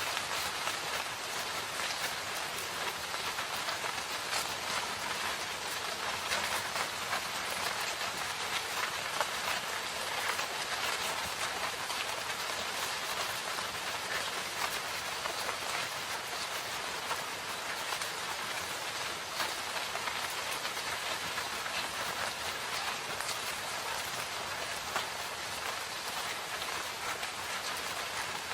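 Steady rain falling in a forest, an even hiss with many small drop patters and no thunder.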